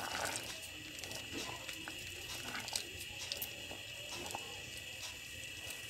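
Plum syrup simmering faintly in a steel pot, with scattered light ticks and scrapes from a silicone spatula stirring it.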